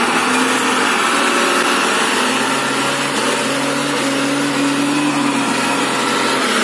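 Diesel engine of a log-laden Tata truck running steadily under load as the truck crawls through mud, its note rising slightly midway.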